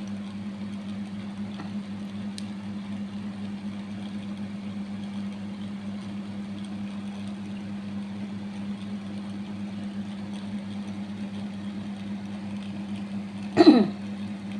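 A steady low hum runs throughout. Near the end a person lets out one short, loud groan that falls in pitch, a pained reaction during coin scraping (kerokan) of the chest.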